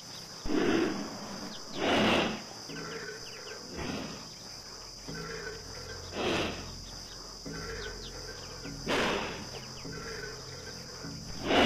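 Forest sound effects: a steady chirr of crickets, with a loud rasping sound recurring every two to three seconds, about six times.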